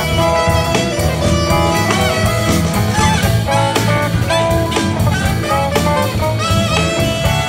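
Live band playing an instrumental passage: saxophone over electric guitars and drum kit, with a steady beat.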